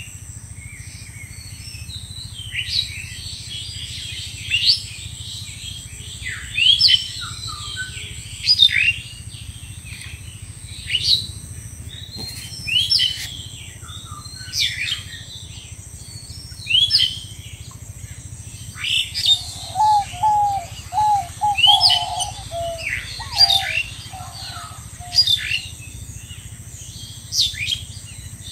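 A bird calling over and over in short, sharp chirps about every two seconds, some sliding down in pitch and some up. About two-thirds of the way in, a lower-pitched quick run of notes joins for a few seconds.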